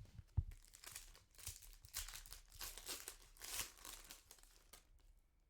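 A trading-card pack wrapper being torn open and crinkled, in irregular rustling bursts with a sharp tap about half a second in.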